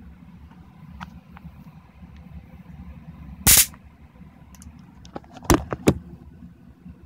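Handheld taser stun gun sparking in short bursts: one loud crackling burst of about a third of a second around the middle, then two shorter bursts close together about two seconds later.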